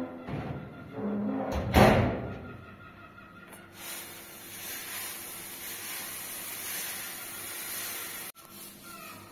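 A few knocks and clatters, the loudest a sharp bang about two seconds in, then a steady hiss that runs for about four seconds and cuts off suddenly.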